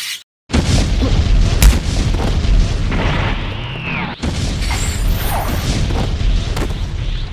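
Layered fight-animation sound effects: explosion-like booms and rumbling blasts start abruptly about half a second in, with a sharp hit a little after a second and a short whistling sweep around three to four seconds.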